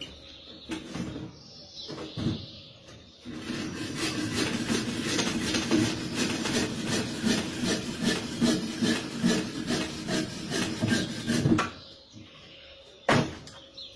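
A branch of firewood being cut with a hand saw: a few scattered knocks, then several seconds of steady back-and-forth rasping strokes, about two a second, that stop abruptly. A single sharp knock follows near the end.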